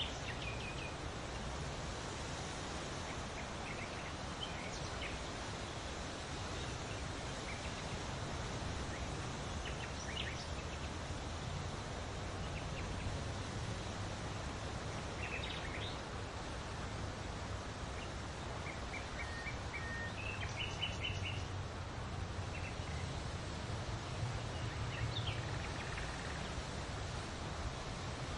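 Outdoor ambience: a steady even hiss with short bird chirps and calls scattered throughout, including a few quick trilled series near the middle.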